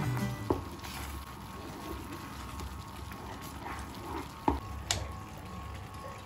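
Thick cheese sauce simmering and squelching as a wooden spoon stirs it in a nonstick frying pan, with a few sharp knocks about half a second in and twice near the fifth second.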